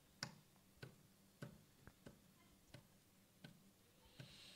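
Near silence broken by faint, evenly spaced ticks, about one every two-thirds of a second, seven in all.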